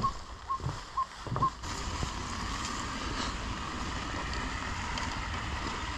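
Steady, even outdoor background noise, like wind. In the first second and a half there are a few short high chirps over soft low thumps.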